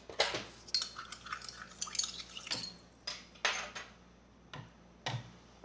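A utensil clinking and scraping against a bowl in a run of short, irregular clicks as slime is stirred.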